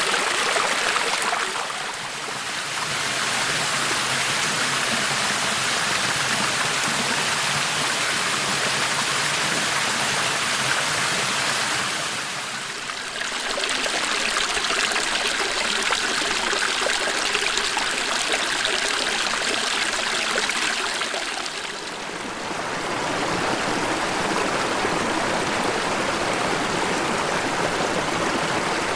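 Running water of a subtropical rainforest creek, a steady rushing and splashing. The level dips briefly three times, and the water's character changes slightly after each dip.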